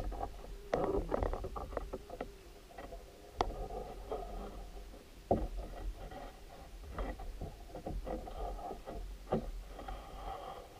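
Twine being pulled tight and knotted around the wooden cross pieces of a pole grate, with scattered short knocks and rubbing as the sticks are handled and shift against each other.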